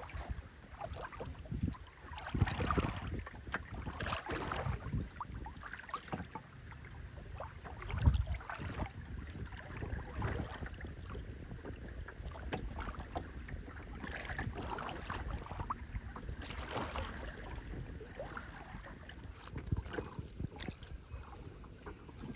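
Wind buffeting the microphone with water noise aboard a moving boat, gusting unevenly with the strongest gust about eight seconds in.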